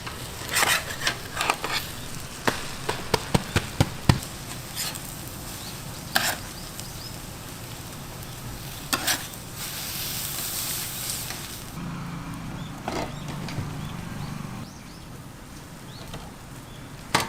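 Cooking sounds: food sizzling in a pan, with a quick run of sharp utensil clicks and knocks in the first few seconds and a brief stronger hiss about ten seconds in.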